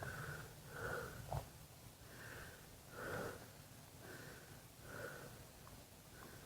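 A man breathing heavily close to the microphone, soft puffs of breath about once a second, with a small click about a second and a half in.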